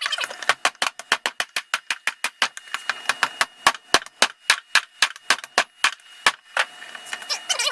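Blacksmith's hand hammer striking hot steel on an anvil in a fast, even rhythm, about five blows a second, over a steady high ring. The blows stop about six and a half seconds in.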